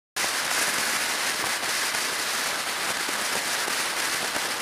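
Steady rushing hiss with fine crackle of wind and road noise picked up by a camera on a motorcycle at highway speed, cutting in abruptly from silence just after the start.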